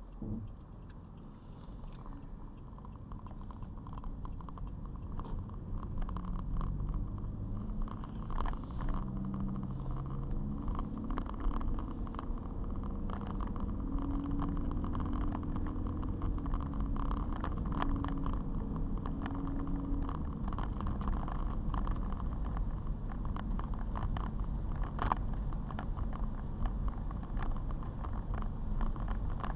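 Car driving on a wet road: engine and road noise build as it pulls away, and the engine note rises in steps as it accelerates. Scattered light ticks run through it.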